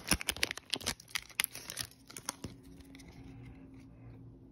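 Foil wrapper of a Yu-Gi-Oh booster pack crinkling as the pack is torn open and the cards are taken out: a quick run of crackles over the first two seconds or so, fading to faint rustling.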